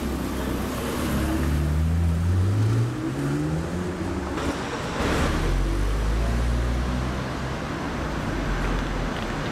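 Porsche 918 Spyder's V8 accelerating away, its pitch rising steadily for about three seconds. Then a Bugatti Chiron's quad-turbo W16 idles with a low, steady drone.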